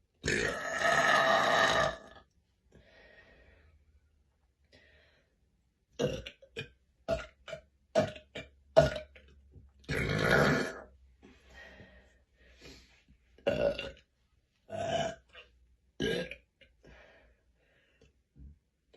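A woman burping over and over: one long burp of nearly two seconds at the start, then a quick run of short burps, another long burp about ten seconds in, and several more toward the end.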